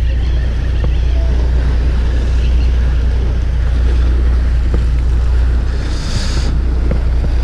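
Wind buffeting the microphone on a fishing boat at sea, over a steady low hum from the boat and the wash of water. A short hiss comes through about six seconds in.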